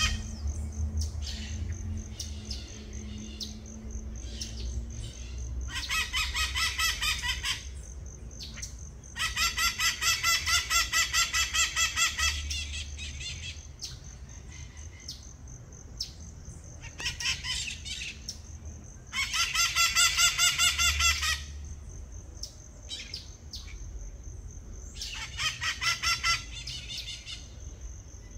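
White-eyed parakeets screeching in loud, harsh bursts of rapid repeated calls, each lasting a couple of seconds. The bursts come four times, with quieter scattered calls between them.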